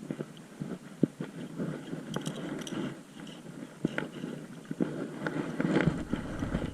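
Steady wind and water noise on a boat, with scattered, irregular knocks and clicks, a little busier near the end.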